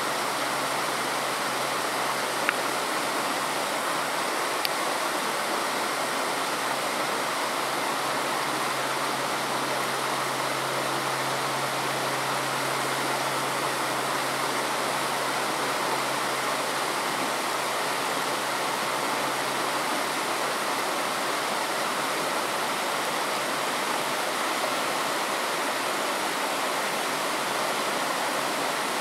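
Steady rushing of a shallow, rocky stream. A faint low hum underneath fades out about two-thirds of the way through.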